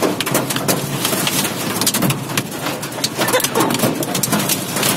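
Heavy rain pelting a car's roof and windscreen, heard from inside the cabin: a dense, loud hiss packed with sharp individual drop impacts.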